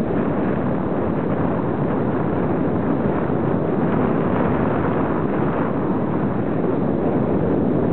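Steady rushing wind noise on the camera's microphone from riding a bicycle at speed.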